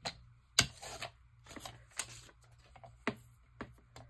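A magazine page rustling and sliding on a plastic paper trimmer, with several sharp clicks and taps as it is handled; the loudest click comes about half a second in, followed by a brief rustle.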